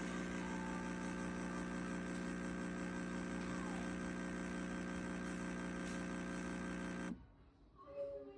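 Steady electric hum made of several held tones, which cuts off suddenly about seven seconds in.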